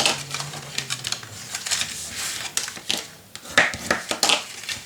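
Cardstock being folded and creased by hand, a scatter of short crackles and taps with the loudest pair a little past halfway.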